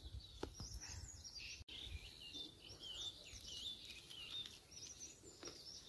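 Faint birdsong: a run of quick, high chirps and warbling notes from small birds, starting about a second and a half in and carrying on to near the end.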